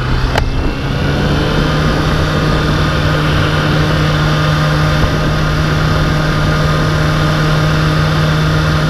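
Kawasaki Ninja 636's inline-four engine running at a steady pitch while the motorcycle rides along, with road and wind noise. The engine note rises slightly just after the start and there is a single sharp click about half a second in.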